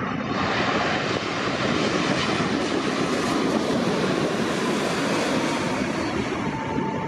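Widebody jet airliner passing low overhead on final approach: a loud, steady rush of engine noise that swells through the middle, with a faint whine that drops slightly in pitch near the end.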